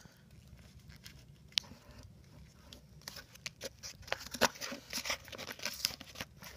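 Handling noise on a phone camera being adjusted: fingers rubbing and tapping against the phone near its microphone, scratchy rustles and clicks that get denser and louder from about three seconds in.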